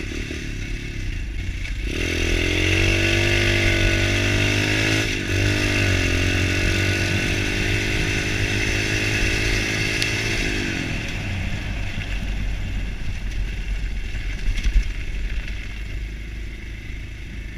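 Pit bike engine pulling under throttle on a gravel road, the revs rising from about two seconds in, dipping and climbing again about five seconds in. About ten seconds in the throttle closes and the engine note fades under the rolling noise of the ride, with one short knock near the end.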